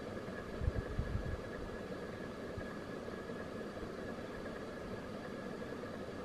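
Steady low background hiss with a faint high whine, and a few soft low thumps about a second in, typical of a handheld camera being shifted slightly.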